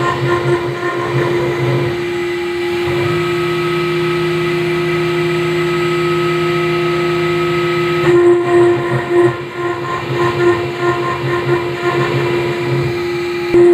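CNC granite engraving machine running, its high-speed spindle giving a steady whine with a constant pitch. From about 3 to 8 seconds in, a lower even hum joins the whine, then drops away.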